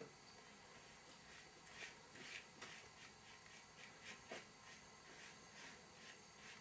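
Near silence, with faint, irregular soft scratches of a paintbrush dabbing paint onto a rough papier-mâché surface.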